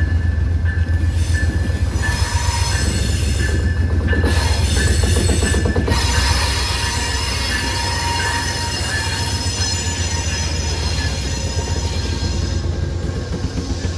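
Amtrak GE Genesis P42DC diesel-electric locomotive approaching and passing close by at the head of its passenger train, its engine rumbling loudly. High-pitched wheel squeal comes from the train on the curve.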